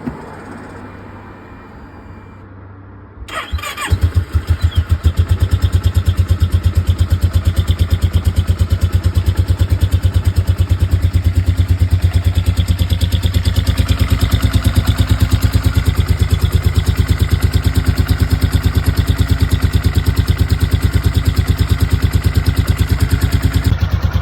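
Kawasaki ER-6's parallel-twin engine starting about three seconds in, then idling with a loud, evenly pulsing exhaust beat. The bike has a misfire on one cylinder, which the owner suspects is either low compression or an electrical fault.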